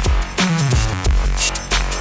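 Electronic drum-and-bass background music with a fast, regular beat and heavy bass; about half a second in, a bass note slides down in pitch.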